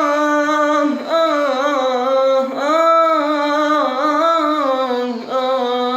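A voice imitating a rababa, the Bedouin bowed fiddle: a nasal, buzzy hummed melody with bending, sliding notes, sung in four short phrases.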